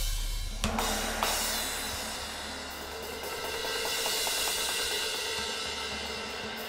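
Drum-kit cymbals ringing in a long wash after a loud opening crash, with two more strikes in the first second or so. The wash swells again around the middle and then slowly fades.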